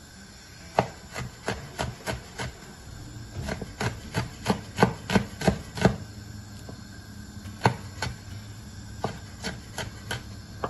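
Raw pumpkin being grated on a hand grater: a run of short rasping strokes in uneven bursts, fastest around the middle at about two or three strokes a second.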